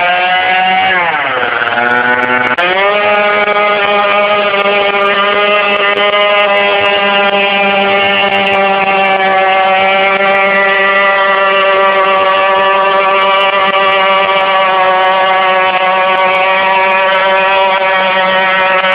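Gilera motorcycle engine revved hard: the pitch climbs, drops back for about a second and a half, then rises again and is held high and nearly steady at full throttle.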